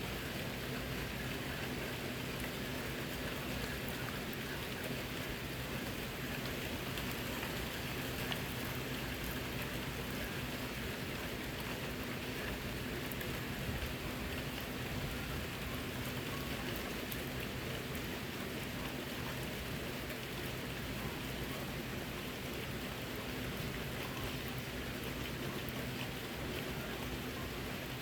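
Steady rain falling, with scattered drops ticking on surfaces and a faint low hum underneath.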